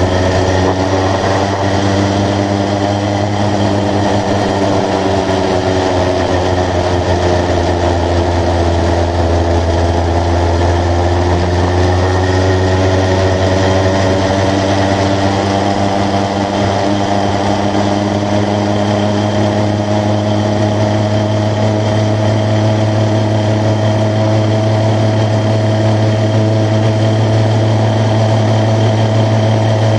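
80cc motorised bicycle engine running under way: a steady engine note that sags a little about a third of the way in, then climbs gradually as the bike picks up speed.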